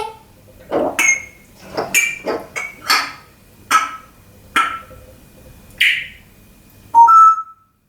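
African grey parrot making a series of sharp knocking, clicking sound effects, about one every half to one second, each with a short ringing tone, and finishing with a louder short held note near the end.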